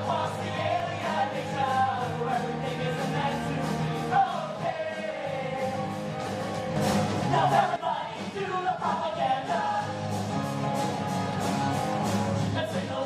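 Rock musical number: voices singing over a rock band with a steady drum beat.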